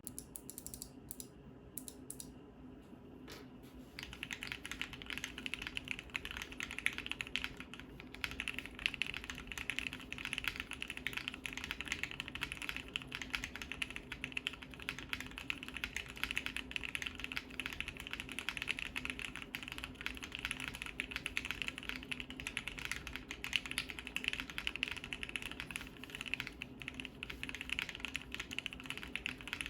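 Bakeneko60 mechanical keyboard with lubed and filmed Gateron Ink Black V2 linear switches on an FR4 plate, being typed on: a few separate key presses, then steady fast typing from about four seconds in. The keystrokes are clacky.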